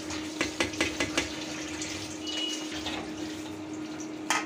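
A steel spoon stirring and scraping grated carrots in milk in a steel kadhai, with several short clicks of metal on metal, over a steady hiss and hum. Near the end a steel lid clanks down onto the pan.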